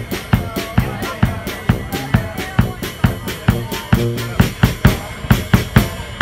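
Small German-style brass band playing, with a drum kit keeping a steady beat on bass drum and snare under tuba and trombone.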